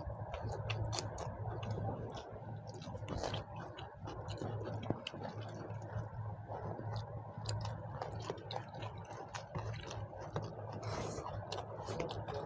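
People eating chicken curry with rice: chewing and mouth sounds, with many small irregular clicks, over a steady low hum.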